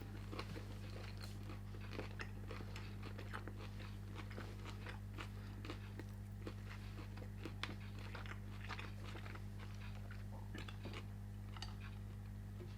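A person chewing a large mouthful of pork belly and side dishes close to the microphone: irregular crunchy chewing clicks, several a second, over a steady low electrical hum.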